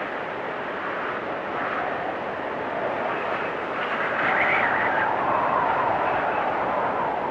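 Wind storm blowing with a whistling tone. A gust swells about four seconds in, its whistle briefly rising higher, then eases into a lower, steady whistle.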